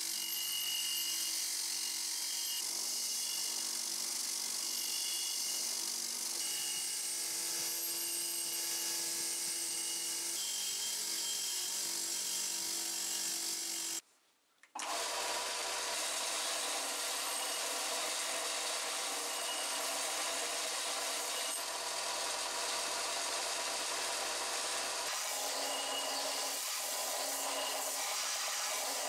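Bench grinder's wire wheel running with a rusty axe head held against it, scrubbing off the rust. After a brief break about halfway through, a bench belt-and-disc sander runs steadily, and near the end the axe head is ground against its abrasive belt.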